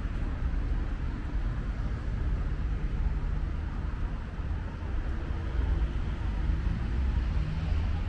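Steady low rumble of city road traffic.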